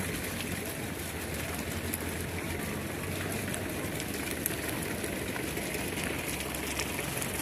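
Hooves of a large flock of sheep trampling over gravel as it is driven along: a dense, steady shuffling clatter of many small steps, with a low steady rumble underneath.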